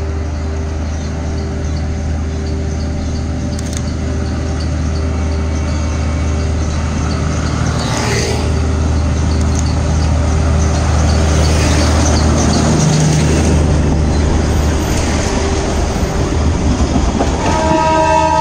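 Darjeeling Himalayan Railway narrow-gauge diesel locomotive approaching with its engine running in a steady low hum, growing slowly louder. A horn sounds near the end.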